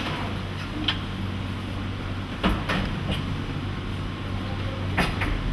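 Steady low hum of factory machinery, broken by three sharp knocks or clacks: about a second in, about two and a half seconds in, and near the end.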